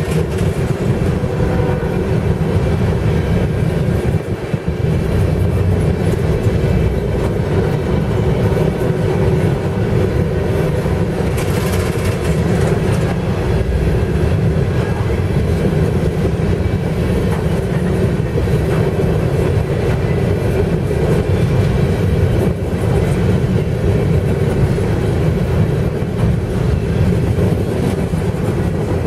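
Empty coal hopper cars of a freight train rolling past, a loud, steady rumble of steel wheels on rail. About twelve seconds in there is a brief higher hiss.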